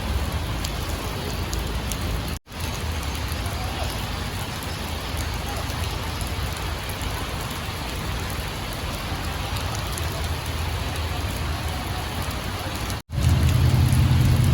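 Steady hiss of rain falling, with a low hum underneath; the sound drops out for an instant twice.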